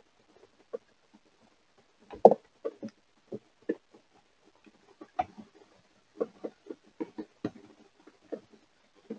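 Two young cats play-fighting inside a shelter box: irregular soft thumps and scuffles of paws and bodies against the box's floor and walls, the loudest thump about two seconds in.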